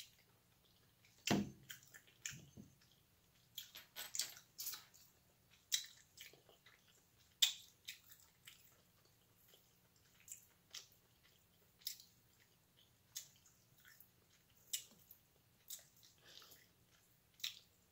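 Quiet close-up eating sounds: irregular wet clicks and smacks, roughly one or two a second, from picking at hard king crab leg shell with the fingers and chewing. One duller thump comes about a second and a half in.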